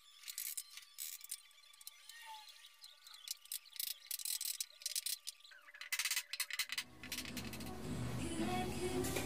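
A rubber mallet lightly tapping the wooden spindles and crest rail of a Windsor-style chair back: a run of short clicks and knocks. About seven seconds in, music from a radio starts playing.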